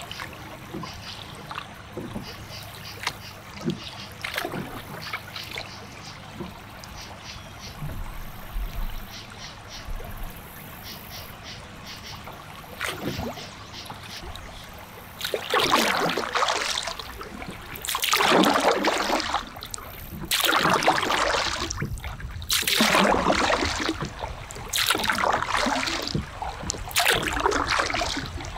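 Kayak paddle strokes in the water: a rhythmic swish and splash about every two seconds that begins about halfway through. Before that there are only light trickles and drips of water as the kayak glides.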